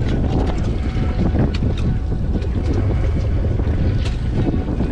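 Steady low rumble of a sportfishing boat's engine, with wind buffeting the microphone and a few faint clicks of handled fishing gear.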